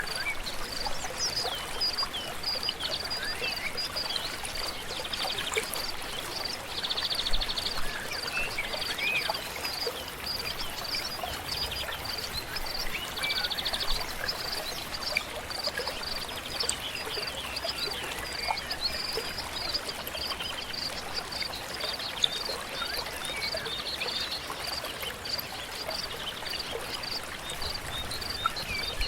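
River flowing steadily, with many birds chirping and trilling over it, including a steady run of repeated high notes.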